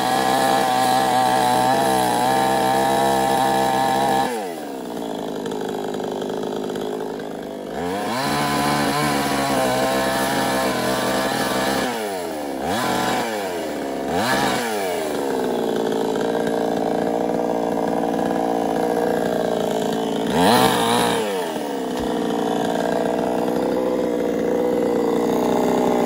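Petrol chainsaw cutting through a felled tree trunk, running at high revs in the cut. The engine drops back to a lower note about four seconds in, revs up again, and gives several quick throttle blips in the middle before settling into a steady cut.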